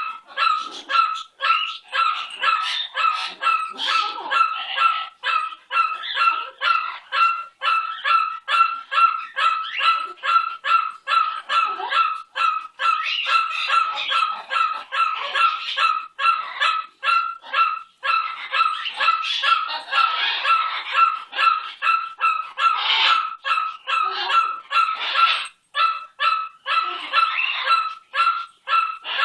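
Pet parrot screaming: harsh, loud calls at one steady pitch, about three a second, kept up almost without a break.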